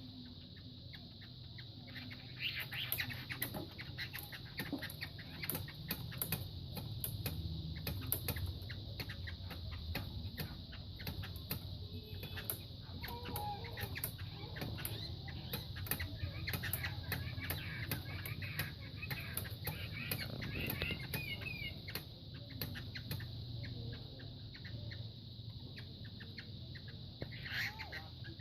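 Two fighting roosters sparring: repeated wing flaps, scuffling and sharp strikes, with a few short calls from the birds later on.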